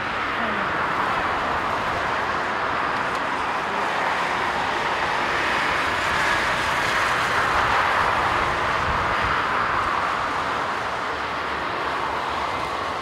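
Jet engine noise from an Airbus A350-941's Rolls-Royce Trent XWB turbofans at taxi thrust as the airliner rolls past: a steady rushing hum that swells slightly midway.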